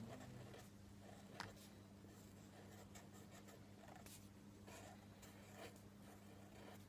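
Faint strokes of a Sharpie marker on paper as letters are written, a few short soft scratches spread through, over a low steady hum.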